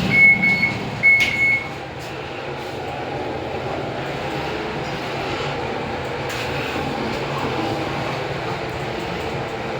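Fujitec lift: two short, high electronic beeps in the first second and a half, then the car running steadily upward with an even hum and rumble.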